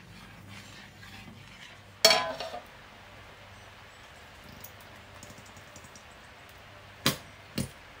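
A metal spoon stirring in a large metal cooking pot, with faint scraping, then striking the pot once about two seconds in with a short ringing clatter. Two sharp knocks about half a second apart come near the end.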